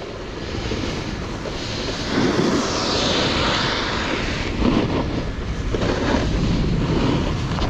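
Wind rushing over the microphone with a snowboard sliding and scraping on snow, swelling louder about two to three seconds in.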